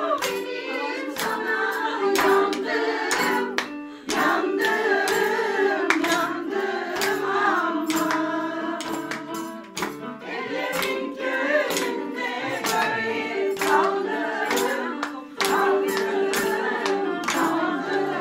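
A group of women singing a song together with no instrument, over steady rhythmic hand-clapping at about two claps a second.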